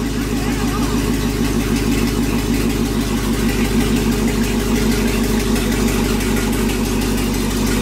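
Pickup truck's LS V8 engine running at a steady idle.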